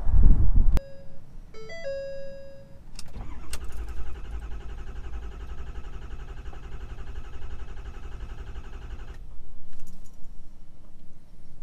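Truck dashboard chimes ring, then the Ford 6.7 L Power Stroke V8 turbo-diesel cranks and fires about three seconds in and settles into a steady idle.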